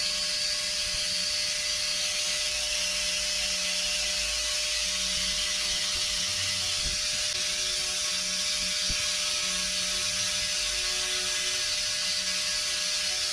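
Small high-speed electric motor of a power tool running steadily, with a hiss and a steady whine.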